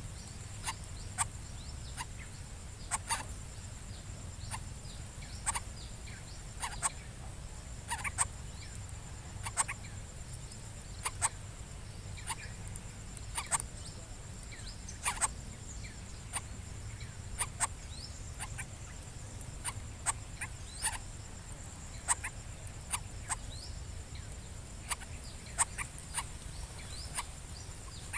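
Outdoor nature sound: short, sharp clicks at irregular intervals, about one to two a second, over a steady high-pitched insect drone and a low background rumble.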